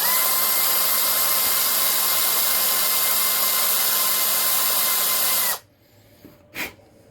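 Small power drill running steadily with a high whine, its bit drilling out the metal rivet post of a die-cast toy car. It stops suddenly about five and a half seconds in, and a few faint clicks follow.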